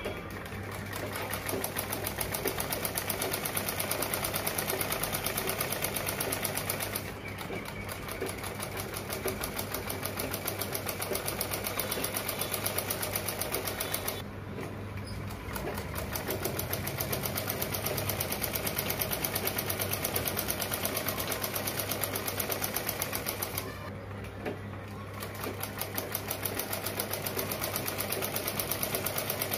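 Black Usha sewing machine stitching in fast, even runs, its needle mechanism ticking rapidly. The stitching pauses briefly three times: about seven seconds in, around fourteen to fifteen seconds, and about twenty-four seconds in.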